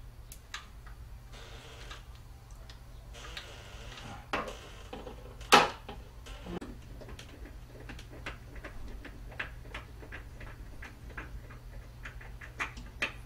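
Small clicks and taps of an electronic door lock's parts being handled as its wire connector is plugged in and the inside body is fitted to the door, with one sharp click about five and a half seconds in.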